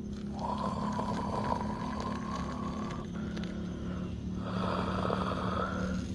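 Freshly boiled water poured from a metal camping pot onto ground coffee in a ceramic cup: a splashing trickle whose pitch rises slightly as the cup fills. It comes twice, a pour of about three seconds, then a shorter one after a short break.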